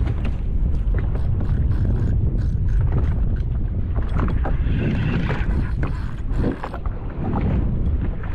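Wind buffeting the microphone in a strong low rumble, with the rapid small clicks of a spinning reel being cranked as a hooked fish pulls hard on the line.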